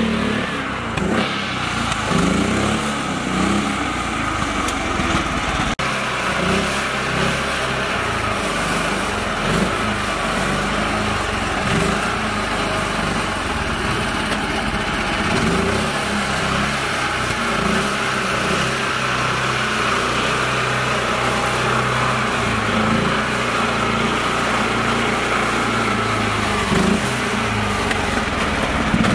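Mini tractor's engine running steadily under load as the tractor churns through mud and muddy water.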